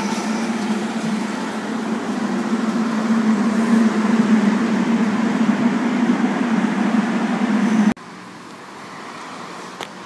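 SEPTA push-pull coaches passing close by at speed, a loud steady rush of wheels on rail with a strong low hum. It cuts off suddenly about eight seconds in, leaving a much quieter outdoor background.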